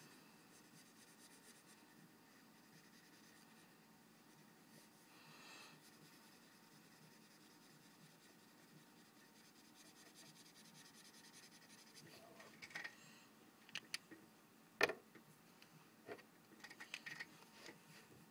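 Faint scratching and rubbing of a green marker colouring on paper. Near the end come several sharp clicks and knocks, the loudest about three-quarters of the way through.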